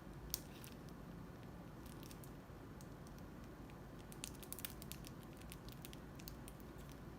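Faint scattered crackles and sharp clicks from handling slime-making materials, with one sharper click near the start and a quicker run of crackles in the second half.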